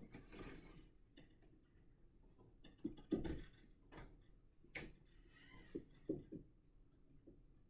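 Near-quiet room tone with a few faint, scattered clicks and knocks.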